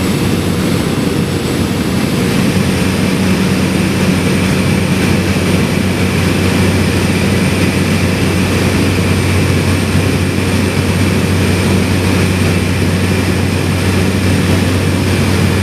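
Steady, loud drone of a small propeller plane's engine and propeller, with a deep hum at its core.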